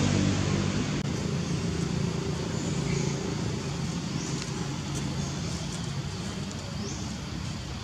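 Steady outdoor background rumble with a few faint, short, high rising chirps spaced a second or two apart.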